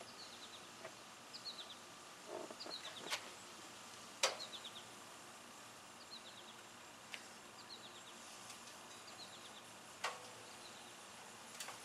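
A bird repeats a short chirping phrase of three or four quick notes about once a second. A few sharp knocks come from the aluminum gazebo frame being handled, the loudest about four seconds in.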